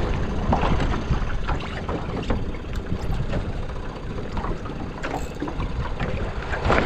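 Wind rumbling on the microphone and water slapping an open aluminum skiff on a choppy sea, with scattered light clicks and knocks.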